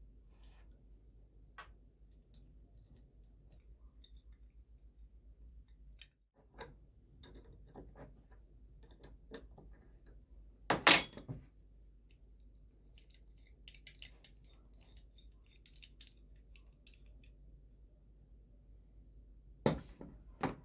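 Metal tools and wrench parts being handled on a workbench: scattered small clinks and knocks, with one loud ringing metal clank about eleven seconds in and another sharp knock near the end.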